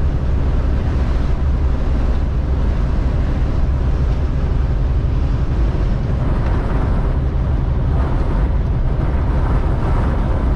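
Strong wind rushing in through the cracked-open driver's window of a truck cab at highway speed, mixed with the truck's steady deep road and engine drone.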